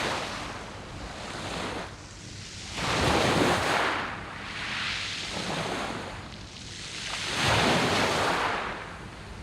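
Sea waves breaking and washing up a beach of round pebbles, in repeated surges that swell and ebb. The two largest come about three and seven and a half seconds in, with a smaller one between.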